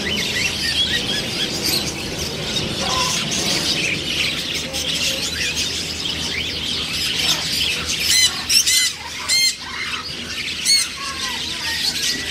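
Macaws squawking and chattering, many calls overlapping, with a few louder squawks in the second half.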